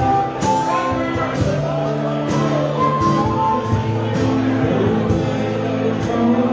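Live acoustic band playing: strummed acoustic guitars over a steady cajon beat, with singing.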